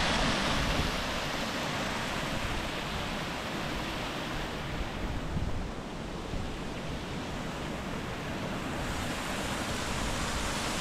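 Steady rush of water from a waterfall, easing a little midway and building again near the end, with wind rumbling on the microphone.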